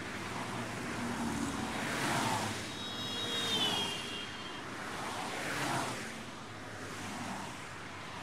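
Steady outdoor ambient noise like distant traffic, swelling and fading every few seconds, with a short high wavering tone about three seconds in.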